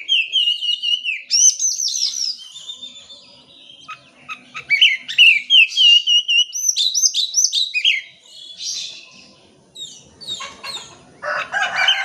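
Oriental magpie-robin singing a fast, varied song of loud whistles, slurred notes and trills, with a brief harsher, raspy burst near the end.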